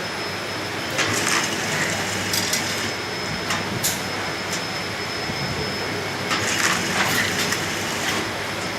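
Automatic linear tunnel-type vial washing machine running: a steady mechanical clatter with a thin high whine, broken by irregular sharp clinks and rattles, a few close together about a second in and again around six to seven seconds in.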